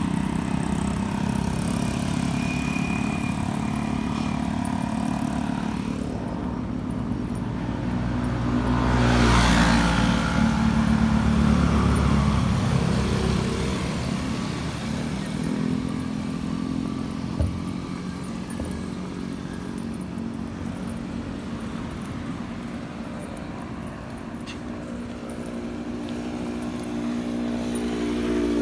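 Motorcycle engines running steadily in a group. About nine seconds in, one vehicle passes close and gets loud, then fades. A single short knock comes a little past halfway.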